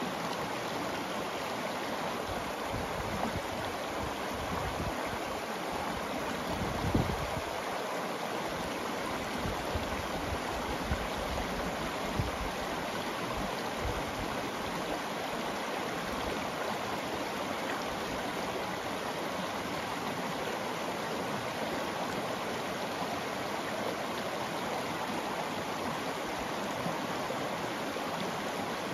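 Shallow rocky river rushing steadily over cobbles in a small riffle. A few brief low thumps in the first half, the loudest about seven seconds in.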